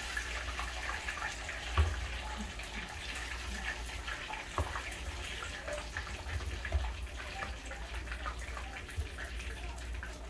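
Hot oil sizzling in a skillet as pieces of fried chicken are lifted out and set in a plastic container, with scattered light clicks and knocks of handling and one louder knock about two seconds in.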